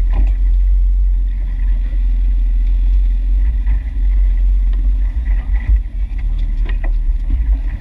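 Steady low rumble of a fishing boat's outboard motor running, with a few scattered knocks and clicks from gear on deck.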